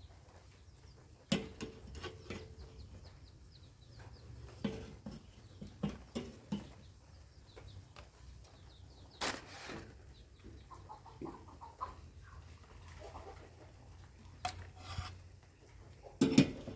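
Chickens clucking faintly in the background, with scattered sharp knocks and clicks, a cluster of them just before the end.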